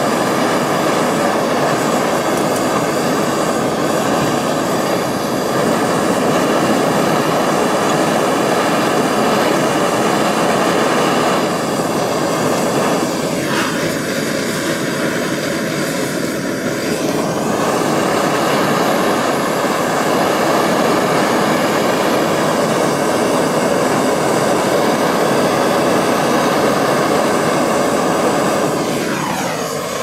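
Handheld propane torch burning with a steady hiss while it heats a battery-cable lug for soldering. Its tone shifts for a few seconds around the middle, and it drops a little near the end.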